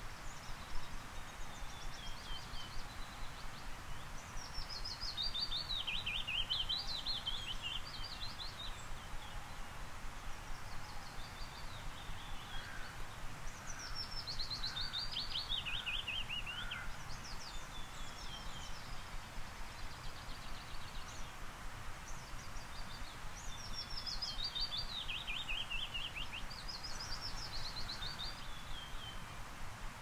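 Willow warbler singing: repeated soft, sweet phrases that cascade down the scale, each about two to three seconds long, with fainter songs between them.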